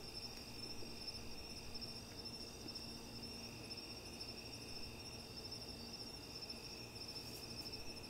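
Crickets chirping steadily at night, several overlapping trills at different pitches forming a continuous insect chorus.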